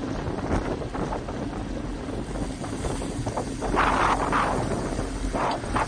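Wind rushing over a bike-mounted Cycliq camera's microphone while a road bike rides at about 39 km/h, a steady rush over a low rumble, with stronger gusts about four seconds in.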